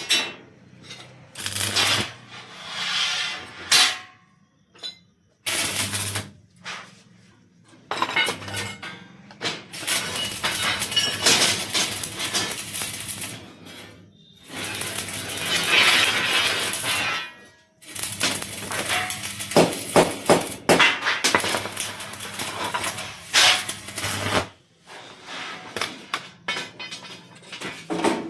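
Electric arc welding on steel grill work: several runs of crackling and sizzling lasting a few seconds each, over a low steady hum, with short sharp metal clicks between the runs.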